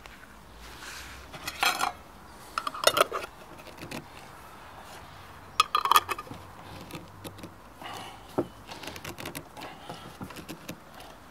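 Metal twist-off lids clinking against glass jars and being screwed shut. There are three loud clusters of sharp clinks, then a lighter run of quick clicks and scraping as the lids are tightened hard.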